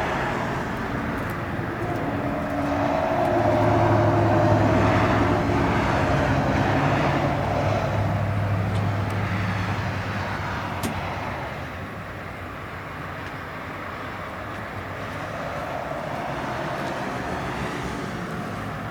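A motor vehicle's engine passing by, a steady hum that swells to its loudest about four seconds in and then fades away.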